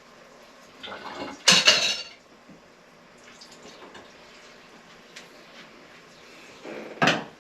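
Cookware clanking: a loud clatter of pot and metal about a second and a half in, and another near the end, as the Dutch oven is handled to pour off the oil.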